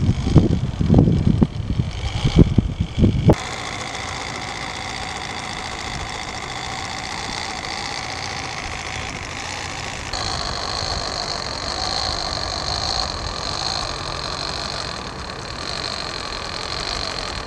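Wind buffeting the microphone for about the first three seconds. Then, after an abrupt change, comes the steady whine of a micro RC crawler's small electric motor and gearbox driving through snow. The whine gets a higher tone about ten seconds in.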